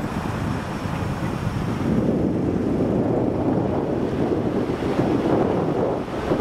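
Steady, gusting rush of wind buffeting the microphone.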